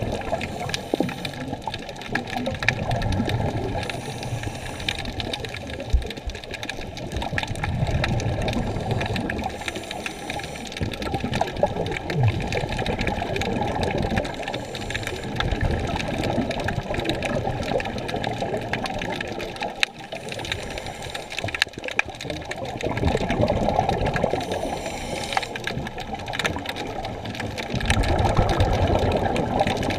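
Water heard through a camera in an underwater housing: a muffled rushing hiss with a fine crackle of clicks, swelling and fading every few seconds.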